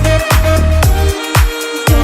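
Background electronic dance music with a strong, steady kick-drum beat; the bass briefly drops out for about a second in the middle.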